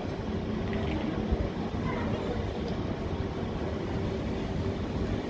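Steady low rumble of railway station background noise with a faint constant hum, and no sudden events.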